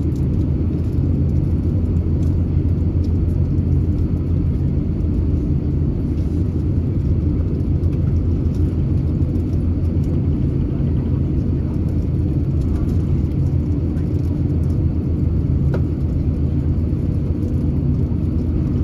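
Airbus A350-900 taxiing, heard from inside the passenger cabin: a steady low rumble of its Rolls-Royce Trent XWB engines at taxi power and the airliner rolling along the taxiway.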